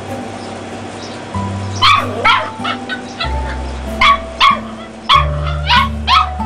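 Dachshund puppies yapping: a string of about eight short, high-pitched yaps, the first about two seconds in, each falling quickly in pitch. Background music with a steady low bass line plays under them.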